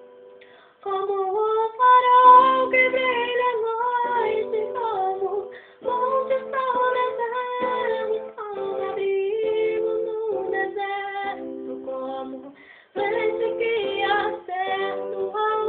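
A girl singing a slow Portuguese-language worship song along with a backing track of sustained chords. The singing starts about a second in, in phrases with short breaths between them and a brief pause near the end.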